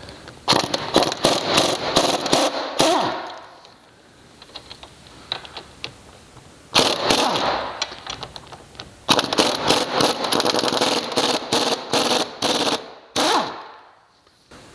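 Impact wrench hammering out the 13 mm bolts that hold a front wheel hub assembly to the spindle, in three rapid rattling bursts, the last one the longest.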